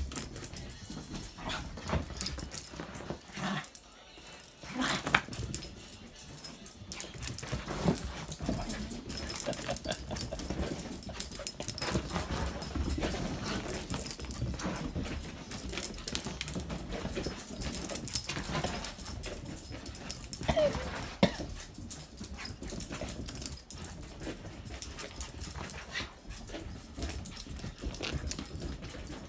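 Two puppies play-fighting: irregular scuffling and knocks, with a brief whine about two-thirds of the way through.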